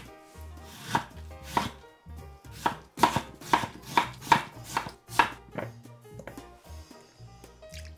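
Chef's knife chopping a white radish on an end-grain wooden cutting board: about ten sharp knife strikes onto the board, coming quickly in the middle and stopping near six seconds in.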